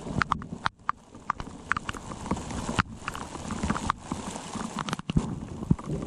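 Rain falling on a lake, a steady hiss with many irregular sharp taps from drops striking close by.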